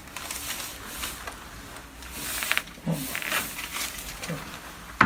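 Chiropractic adjustment: heavy hissing breaths and two short low grunts from the patient, then one sharp crack right at the end.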